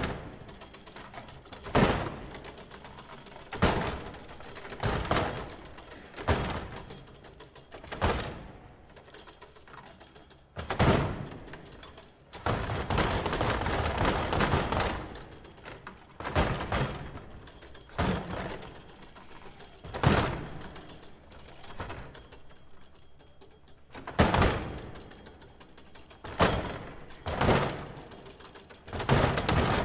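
A series of loud, sharp bangs, each ringing briefly, coming about every one to two seconds at uneven intervals. A longer, rough noisy stretch of about three seconds runs around the middle.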